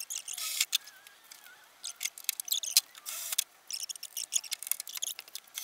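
Light clicking and rustling of small hand tools and parts being handled, a scatter of short irregular clicks.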